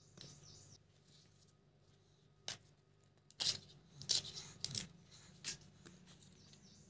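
Fresh haakh (Kashmiri collard greens) being cleaned by hand: leaves snapped and torn off their stems, a handful of crisp sharp snaps between about two and a half and five and a half seconds in.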